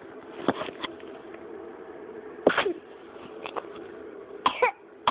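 A person coughing: three single coughs about two seconds apart, the second and third loudest, each trailing off with a falling voiced tail.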